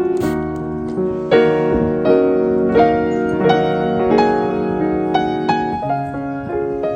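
Background piano music: a slow melody of single sustained notes with ringing chords beneath.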